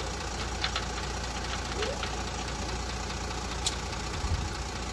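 A few faint metallic clicks as a locking wheel bolt is threaded by hand into an alloy wheel's bolt hole, over a steady low rumble.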